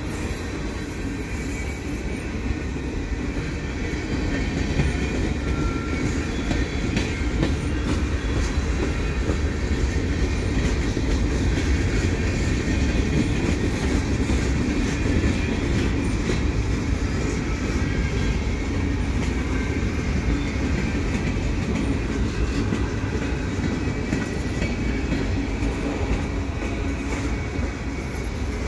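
Freight train cars (autoracks, boxcars and tank cars) rolling past on the adjacent track: a steady rumble of steel wheels on rail with clicking and rattling from the cars, growing a little louder a few seconds in.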